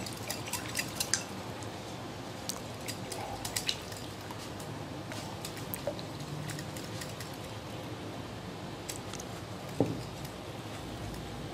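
Light clinks and taps of a wire whisk against a glass mixing bowl as gram flour is mixed into yogurt, clustered in the first few seconds, with one sharper knock near the end.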